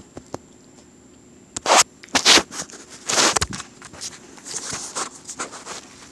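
Phone being handled with fabric rubbing against the microphone: a few sharp scrapes and rustles, then a longer stretch of softer rustling near the end.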